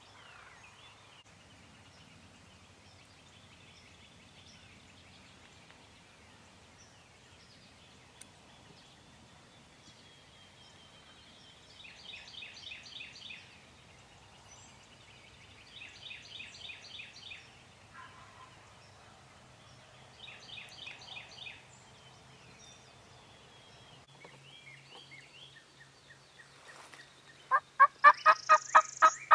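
Wild turkey tom gobbling three times in the distance, each gobble a quick rattling call of about a second and a half, spaced a few seconds apart. Near the end a much louder, close series of rapid turkey calls begins.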